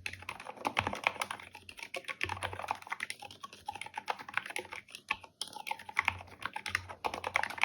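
Fast typing on a mechanical keyboard with stock, unlubricated Gateron silent black switches: a quick run of keystrokes with a couple of brief lulls.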